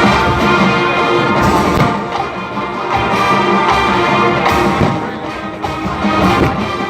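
College marching band playing a loud brass-led arrangement, with the horns sustaining chords over marching percussion.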